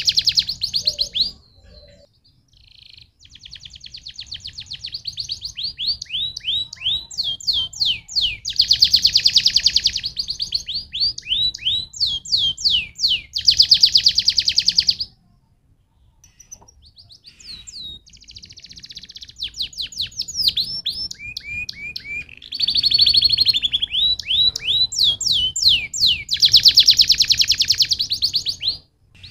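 Domestic canary singing long phrases of rapid trills and quick notes that fall in pitch. The song breaks off briefly about two seconds in and again for a couple of seconds around the middle.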